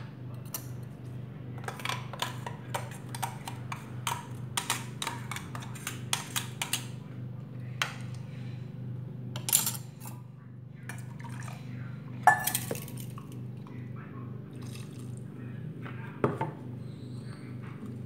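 A spoon clinking and scraping against a steel mixer jar and a glass dish as ground coconut paste is scraped out and stirred into cooked vegetables. An irregular run of sharp clinks, the loudest about halfway through, over a steady low hum.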